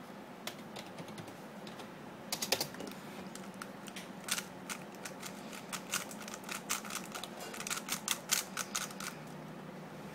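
A 3x3 speedcube being turned fast during a timed speedsolve: a rapid, irregular run of plastic clicks and clacks that thickens about two seconds in and stops about a second before the end.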